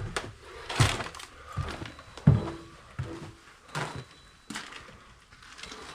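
Slow, heavy footsteps going down stairs, about one step every three-quarters of a second, each a dull thud with some scuffing.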